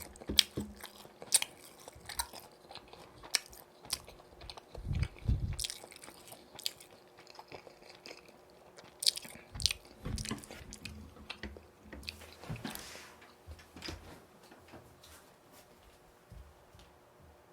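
Close-miked biting and chewing of yurinki-style boneless fried chicken. Many sharp crunches come through most of the stretch, then thin out to sparser, quieter chewing near the end.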